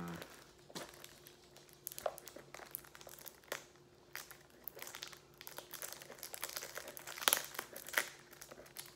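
Cellophane shrink-wrap on a sealed trading-card deck box crinkling and crackling as fingernails pick and scratch at the tight seal. The crackles are irregular and get busier near the end.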